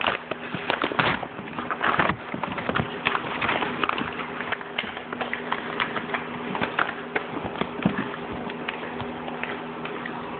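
Crumpled packing paper being pulled out of a cardboard box: irregular crinkling and rustling with small knocks from handling the box.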